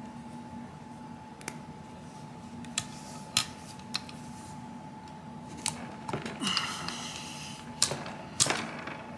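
Cleaning rod with a dry patch being handled at a revolver barrel: a few sharp, separate clicks and taps, then rubbing and scraping from about six seconds in as the patch is worked through the bore.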